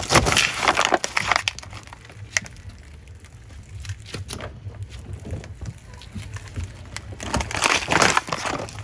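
Car tyre rolling onto liquid-filled plastic bottles and crushing them, with crackling plastic crunches in the first second or so and again about seven seconds in, over a low steady rumble.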